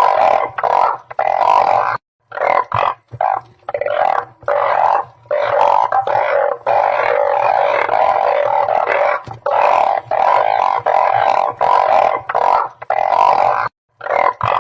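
Chorus of truncate-snouted burrowing frogs (Glyphoglossus molossus) calling, a dense run of overlapping calls with no pause between them. It cuts out abruptly to silence twice: about two seconds in and near the end.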